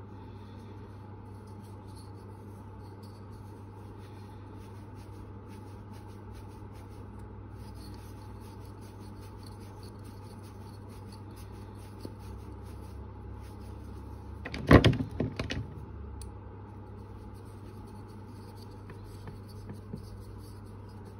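Faint scratchy rubbing of hands working a carved wooden lure body, over a steady low workshop hum. About fifteen seconds in comes a short burst of loud knocks.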